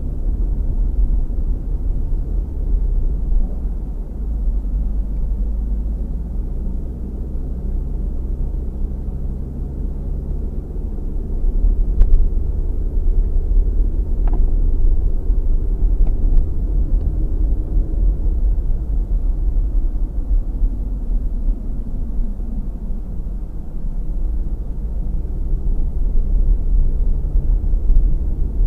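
Car driving along a country road, heard from inside the cabin: steady engine and tyre rumble, with a few brief clicks around the middle.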